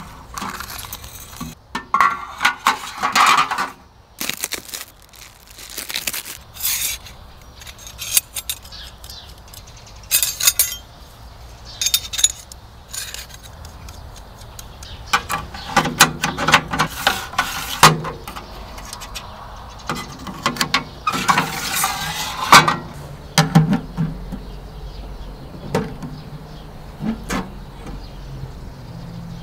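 Parts of a wood-burning tent stove being unpacked and handled: irregular metallic clinks, clanks and scrapes in scattered clusters, thinning out near the end.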